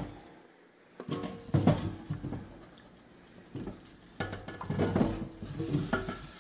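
Seasoned potato quarters tumbling out of a stainless steel bowl into a metal roasting pan, with knocks and clinks of the metal. The knocks come in two bunches, about a second in and again from about four seconds in.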